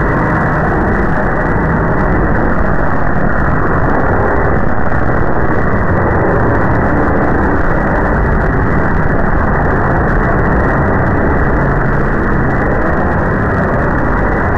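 Loud, steady, muffled rumbling noise with no treble, unchanging and without any distinct strikes or tones.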